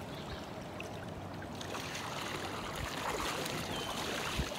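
Steady rush of moving river water with a hooked catfish splashing and thrashing at the surface beside the boat, and a short low thump near the end.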